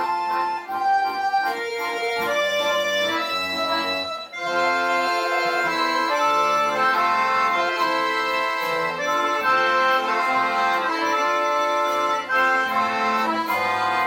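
Accordion orchestra playing a tune in several parts: held chords over a moving bass line. The music briefly thins almost to a stop about four seconds in, then comes back fuller.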